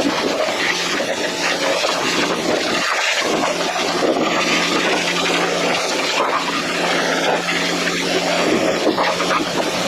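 Pressure washer spraying a hard jet of water against a Jeep JK frame: a loud, steady hiss with a steady low hum underneath.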